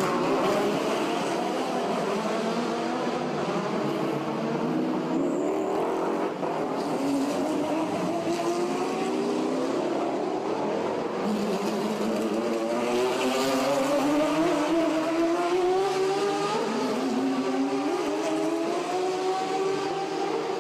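Race car engines accelerating along the track, several at once, their notes climbing one after another as they pull away.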